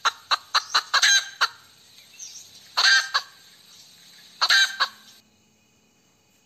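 Hen cackling: a quick run of short, sharp clucks, then two longer drawn-out cackles, after which the sound cuts off abruptly.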